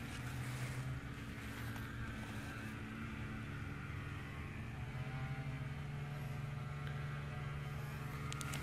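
A steady low mechanical hum, like a motor or engine running at a constant speed.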